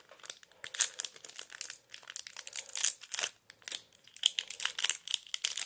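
Foil wrapper of a Bakugan trading-card booster pack crinkling in the hands as it is opened, a dense run of irregular crackles.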